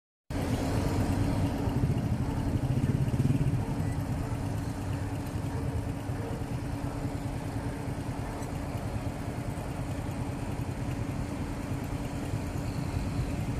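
City street traffic: motorbike and car engines running past with a steady low rumble, a little louder about three seconds in.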